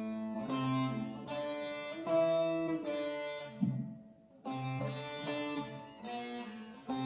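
Saz (bağlama), a long-necked lute, playing a melody in single picked notes, with a short break about four seconds in.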